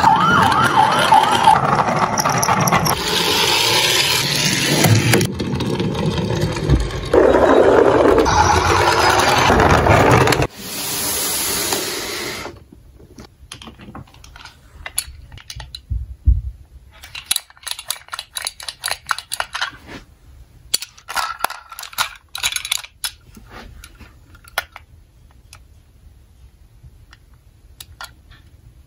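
Battery-powered toy ambulance's electronic siren playing through its small speaker for about ten seconds, then cutting off suddenly. After that, plastic toy cars click and clatter as they are handled and sorted in a cardboard box.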